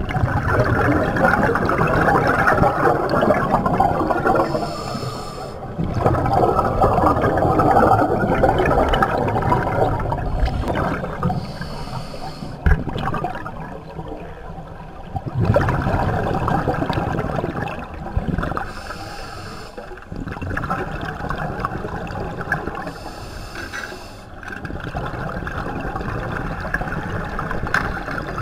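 Scuba diver breathing through a regulator underwater: long bubbling rushes of exhaled air, each lasting several seconds, with short dips and a brief higher hiss between some of them.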